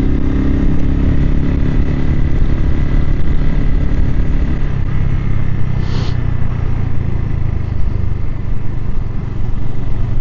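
Suzuki TU250X's single-cylinder engine running under way, heard from inside the rider's helmet with road and wind noise. About halfway through, the higher engine note fades and a lower, steady running note remains. There is a brief hiss about six seconds in.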